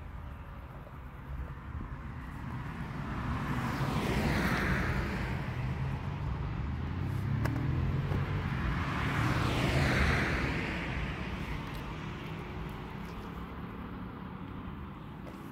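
Two road vehicles passing by one after the other, the first about four and a half seconds in and the second about ten seconds in. Each swells up and then fades away.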